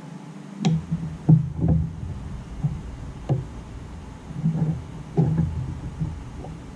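Irregular light knocks and clicks as multimeter test probes are moved between and pressed against the plastic terminals of an ignition coil pack, with handling noise.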